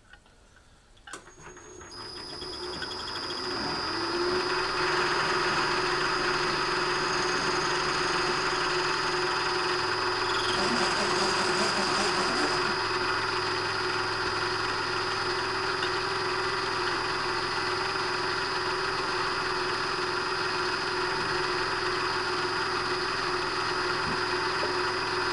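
Vertical milling machine switched on with a click, its spindle spinning up over a few seconds and then running steadily with a high whine. About ten seconds in, a lower hum joins in.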